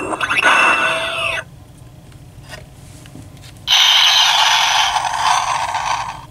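Electronic sound effects played through the small speakers of battery-powered Titan Hero Tech Thor and Hulkbuster action figures. First a warbling, sweeping effect for about a second and a half, then after a short lull a loud hissing, crackling blast lasting about two and a half seconds.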